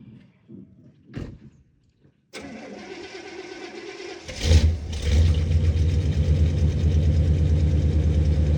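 A vehicle engine being started: a knock about a second in, a steady whir from a little past two seconds, then the engine catches about four seconds in with a brief rev and settles into a steady idle.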